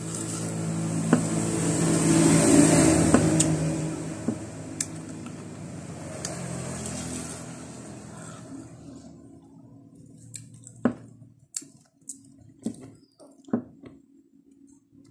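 A motor vehicle passing by, its engine rising to a peak a few seconds in and fading away by the middle. Near the end, a few sharp clicks and smacks of eating.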